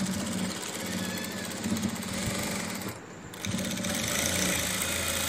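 Sewing machine running steadily as it stitches through folded cloth. It stops briefly about three seconds in, then starts again.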